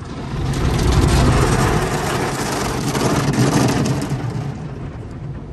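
Automatic car wash spraying water against a truck's windshield and windows, heard from inside the cabin as a loud, even rush. It swells about half a second in and eases off after about four seconds.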